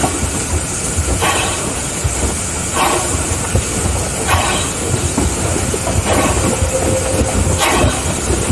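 Mason Bogie 0-6-4T steam tank locomotive running along the track, heard from inside its cab: a steady low rumble with a sharper noisy beat about every one and a half seconds. A faint thin steady tone joins about six seconds in.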